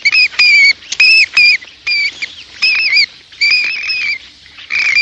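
Bat squeaking: a quick series of short, high-pitched chirps, about ten of them, each with a small dip and rise in pitch.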